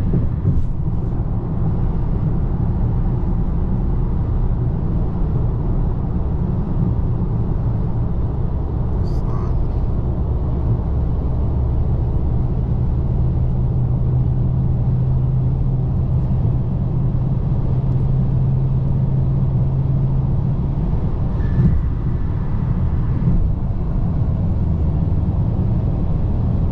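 Steady road and tyre rumble inside the cabin of a 2024 Toyota Corolla cruising at highway speed. A steady hum rises out of the rumble for several seconds in the middle.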